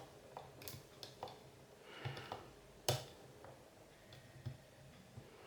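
Small, scattered metallic clicks and ticks of a disc-detainer pick turning the discs inside an Oxford Scoot XA5 disc lock cylinder as it is picked, with a sharp, louder click about three seconds in.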